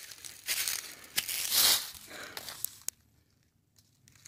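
Footsteps crunching through dry leaf litter: several rustling steps, then they stop for about a second near the end.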